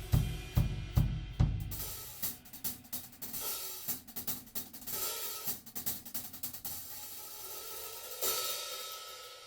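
Acoustic drum kit being played: a few heavy low drum hits evenly spaced about two and a half a second, then quicker lighter strokes on hi-hat and cymbals, and a cymbal crash near the end that rings out.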